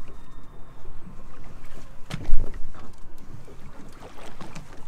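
Water sloshing against a boat hull and wind on the microphone, with one loud thump a little over two seconds in.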